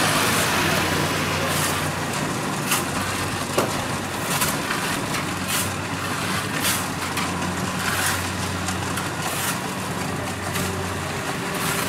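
Kubota DC-70 Plus combine harvester's diesel engine running steadily at working speed while it harvests rice, a low even hum under the noise of its threshing machinery. Sharp clicks or knocks come at irregular intervals, roughly once a second.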